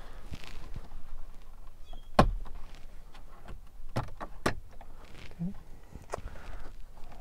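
Plastic interior dash trim being pried and pulled loose by hand: scattered sharp clicks and knocks of snap-in clips and panels, the loudest about two seconds in, with more around four and six seconds in.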